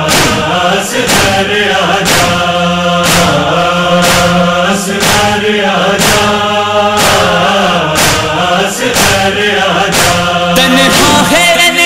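Noha lament: a male chorus holds a steady chanted drone under wordless vocal lines, with sharp chest-beating (matam) strokes about once a second. Near the end the drone stops and a single wavering voice starts.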